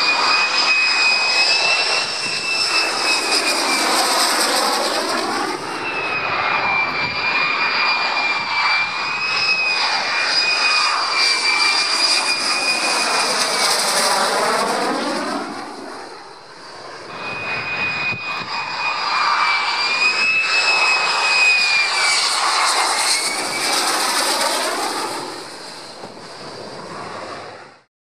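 Lockheed Martin F-35A's single Pratt & Whitney F135 turbofan on a low, gear-down approach: jet roar with a steady high-pitched whine, and a swishing, phasing sweep as it passes overhead. The sound breaks and restarts twice, around six and seventeen seconds in, and cuts off abruptly at the end.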